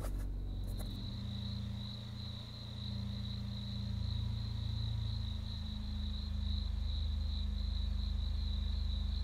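Crickets chirping in a continuous, finely pulsing high trill that starts about a second in, over a low steady hum.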